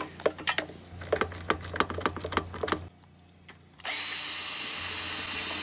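A run of irregular metallic clicks and taps as a bolt on a lawnmower engine is worked loose, then a short pause and a power tool running steadily for about two seconds near the end.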